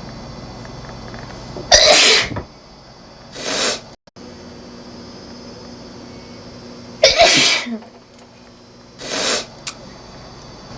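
A woman sneezing twice, a few seconds apart: two loud, short sneezes, each followed about a second and a half later by a quieter breathy sound.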